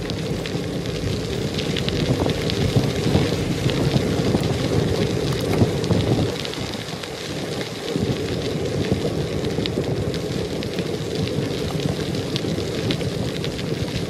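Bicycle tyres crunching and crackling over a packed gravel trail, with wind rumbling on the microphone. The rumble eases briefly about six seconds in, then picks up again.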